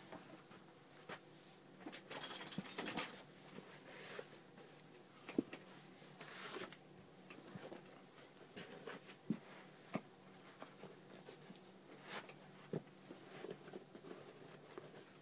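Faint rustling, light scuffs and small knocks of leather Jordan sneakers being slipped off and on, and hands pulling at the laces. There are two longer stretches of rustling, about two and six seconds in.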